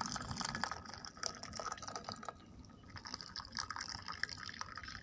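Faint water sounds: irregular light drips and small splashes of liquid.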